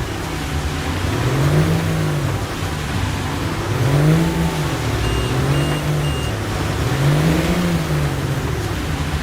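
A vehicle engine revving up and down in slow swells, one every two to three seconds. About five seconds in come three short high beeps.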